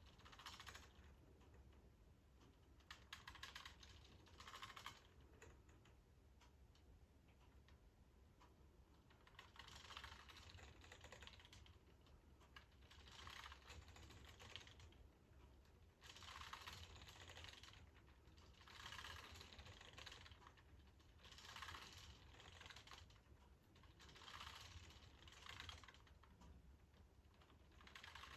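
K'nex model Loop-O-Plane ride running, its plastic parts clicking and rattling in bursts every two to three seconds as the arms turn, over a faint steady low hum.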